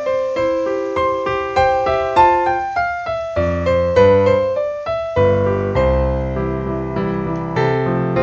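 Background piano music: a melody of separate notes, with deeper bass notes joining about halfway through.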